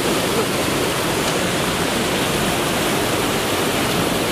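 A loud, steady rushing noise, even and unbroken, like rushing water.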